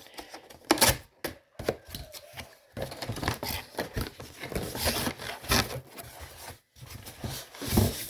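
Cardboard box and packaging being handled and opened: irregular scraping, rustling and light knocks.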